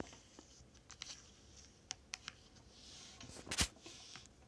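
Small plastic number pieces handled and set down on a flat surface: scattered light clicks and taps, the sharpest one about three and a half seconds in.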